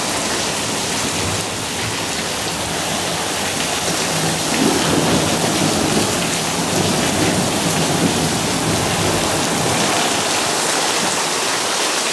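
Heavy monsoon rain pouring steadily, heard from under a patio roof, with a low rumble of thunder swelling for a few seconds in the middle.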